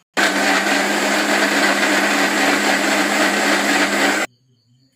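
Electric mixer grinder blending boiled jackfruit seeds with water, its motor running at a steady high speed. It starts just after the beginning and cuts off suddenly about four seconds in.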